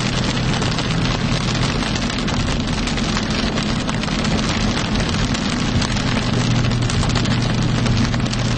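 Heavy rain hitting a vehicle, a dense patter of many small hits over a steady low engine and road hum.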